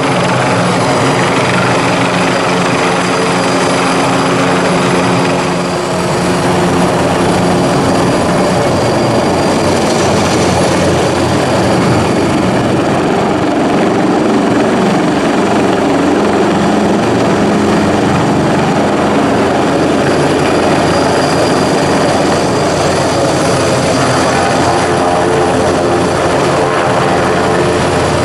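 Airbus Helicopters H225M Caracal, a twin-turbine military helicopter, flying low and close: loud, steady rotor and turbine noise with a constant engine hum underneath, dipping slightly about six seconds in.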